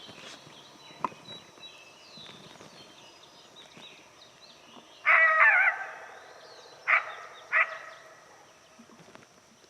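Coyote vocalizing: a loud wavering yelp about five seconds in, then two short sharp barks a second and a half later. Faint bird chirps run underneath.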